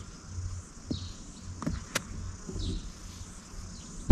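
Birds chirping over a low, gusting rumble of wind on the microphone, with a few sharp clicks of golf balls being struck, the sharpest about two seconds in.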